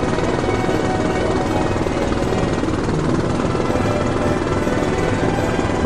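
Steady helicopter noise, a rapid rotor chop over engine drone, heard from the aircraft filming from the air.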